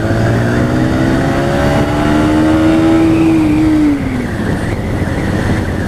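Motorcycle engine accelerating, its pitch rising steadily for about four seconds, then dropping away as the throttle eases, over steady wind and road noise.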